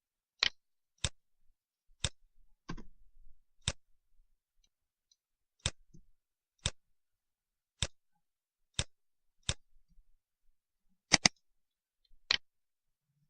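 Computer mouse clicking: single sharp clicks at uneven gaps of roughly a second, with a quick double click about eleven seconds in.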